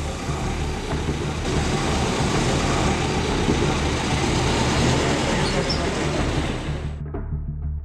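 Engine and road noise of a police pickup driving away, heard as a loud steady rush over background music. The vehicle noise cuts off suddenly about seven seconds in, leaving the music with separate drum strokes.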